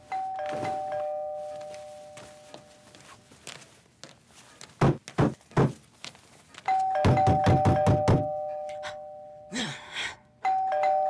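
A two-tone ding-dong doorbell chime rung three times, each ring a higher note followed by a lower one that hang on for a couple of seconds. A few loud knocks land around the middle, then fast pounding on the door, about four blows a second, under the second and third rings.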